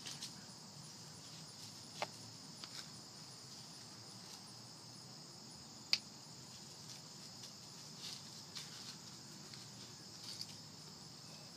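Insects trilling in a steady high-pitched drone, with a few short faint clicks, the sharpest about six seconds in.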